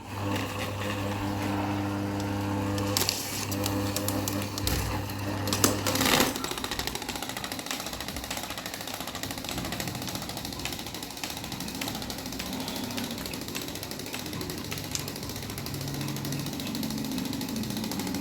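Electric propeller fan starting up with a steady motor hum and a few knocks. About six seconds in it turns into a rapid, continuous rattle of the spinning blades.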